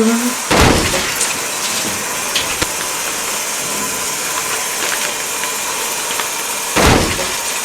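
Shower water spraying steadily, with a heavy thump about half a second in and another near the end, and a few light ticks in between.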